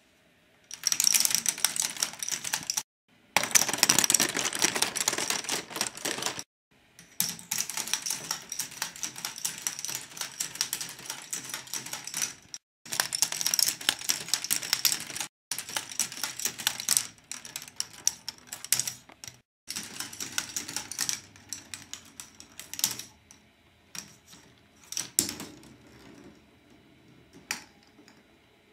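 K'nex ball machine running: a dense, rapid clatter of plastic balls rolling and dropping through its plastic tracks and lifts, broken off abruptly several times, thinning to scattered single clicks over the last few seconds.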